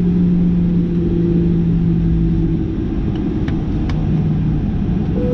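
Jet airliner's engines running at idle on the ground, heard inside the cabin at a window seat: a steady low rumble with a few steady hums, one of which fades out about halfway through, and a faint click or two near the end.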